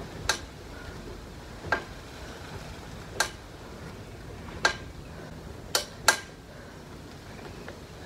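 Elliptical trainer clicking as it is pedalled: a sharp, short metallic clink about once every second and a half, with two clinks in quick succession about three quarters of the way through, over a steady low background noise.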